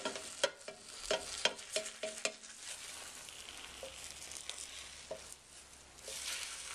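Plastic slotted spatula scraping and clicking against the Copper Chef square pan's ceramic-coated surface as it is worked under egg-battered French toast and flips it, a quick run of scrapes in the first two seconds or so. Under and after it, the steady sizzle of the batter frying.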